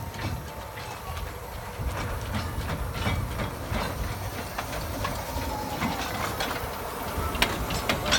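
Narrow-gauge steam locomotive and its open passenger cars rolling past, wheels clicking irregularly over the rail joints over a low rumble, with a hiss of steam. The sharpest clicks come near the end.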